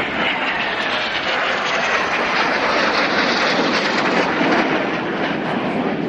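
A Dassault-Dornier Alpha Jet's twin Larzac turbofan engines passing overhead, a steady jet roar with a faint whine that falls in pitch over the first couple of seconds.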